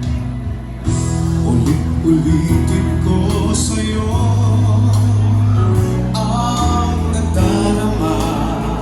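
Band music with a man singing, played loud through a Crown RCX15 PA loudspeaker set flat with no EQ. Heavy sustained bass notes run under the voice.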